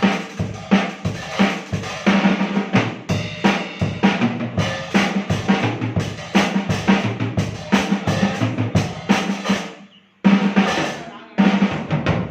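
Drum kit being played: a steady beat of kick and snare hits that grows busier, breaks off briefly about ten seconds in, then comes back with two loud hits near the end.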